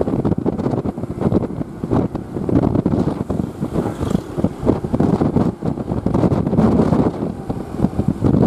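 Rough, steady rumble of a diesel bus engine and exhaust, mixed with wind buffeting the microphone.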